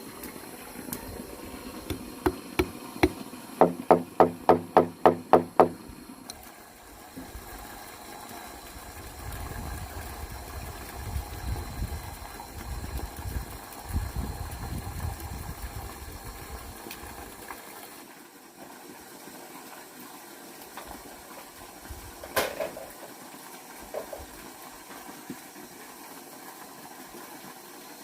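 Hammering: a few scattered knocks, then a quick run of about eight hollow, ringing blows on bamboo, followed later by a low rumble and one more knock.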